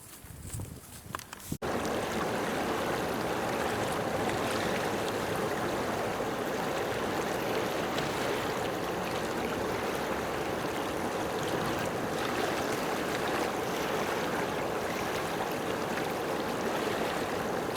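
A few soft knocks over a quiet background, then about a second and a half in a steady rush of running water starts abruptly and continues.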